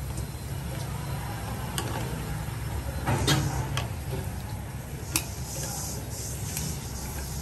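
Plastic tongs clicking and scraping against a wok as king crab pieces and celery are turned in simmering broth, a few separate knocks with a cluster about three seconds in. Under it a steady low rumble, and a hissing simmer rises near the end.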